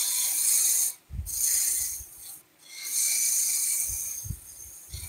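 A turning tool cutting a spinning wooden spindle on a lathe, shaving off chips in a scraping hiss. There are three cuts of about a second each with brief pauses between them, and the last one trails off. The tool is rounding the work over into a small half bead at the waist.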